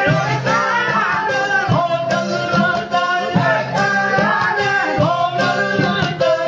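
Men singing together in a wavering, melismatic line over several strummed tanburos, long-necked Sindhi lutes, whose strings keep up a steady, rhythmic drone.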